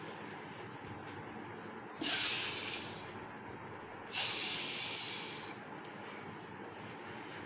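Two loud hisses through the teeth from a person: the first starts suddenly about two seconds in and lasts about a second, the second comes about two seconds later and fades out over about a second and a half.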